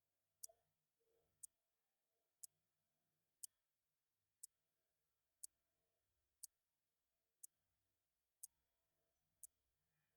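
Clock ticking: sharp, short ticks, evenly spaced at one a second, over faint background hiss.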